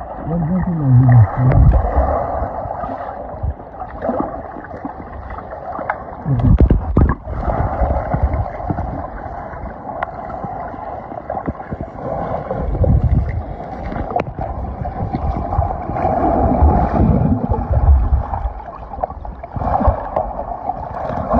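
Muffled water noise, rushing and gurgling, as heard underwater. It has a deep rumble that swells several times, and a few low sliding tones about a second in.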